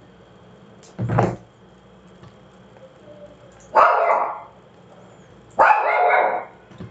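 A dog barking in three separate barks, about a second in, near four seconds and at about five and a half seconds, the later two longer.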